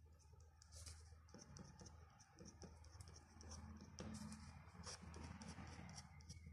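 Faint scratching of a fine pen nib on paper in many quick, short strokes, drawing small grass tufts, over a low steady hum.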